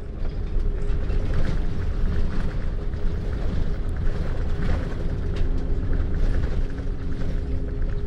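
Shuttle bus running along a road, heard from on board: a steady low rumble with a faint steady drone, and scattered rattles and creaks.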